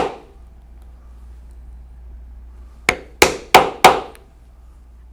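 A 1/8-inch round drive punch being struck to punch holes through vegetable-tan leather: one strike right at the start, then four quick strikes about a third of a second apart near the end of the third second.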